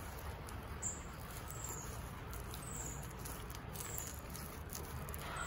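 A bare hand scraping and pushing loose, crumbly soil, a soft gritty rustle with small clicks of clods. A short high falling chirp repeats about once a second.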